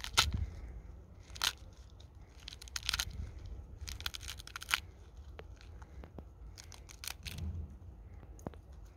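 Pomegranate rind being pulled apart by hand along scored cuts, giving a run of short, irregular cracks and tearing sounds as the rind and inner membrane split.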